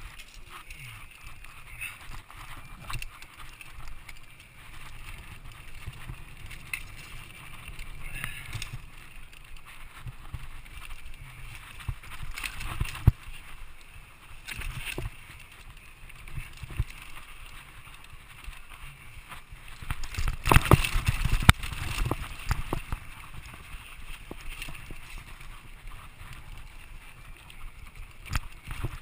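Mountain bike riding down rough dirt singletrack: tyres rolling over dirt and stones with the bike rattling and knocking over bumps. A single sharp knock comes near the middle, and a cluster of heavy knocks comes about two-thirds of the way through as the bike rides over rougher ground.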